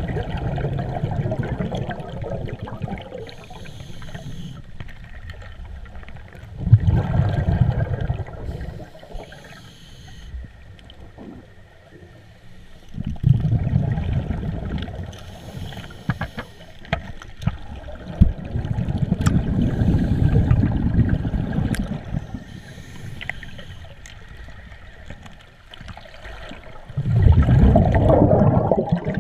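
Scuba diver breathing underwater through a regulator: a gurgling burst of exhaled bubbles about every six to seven seconds, with a faint hiss between them.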